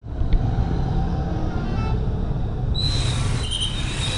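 Coach bus engines running with a low, steady rumble. From about three seconds in, a high, shrill, steady whistle-like tone sounds over it.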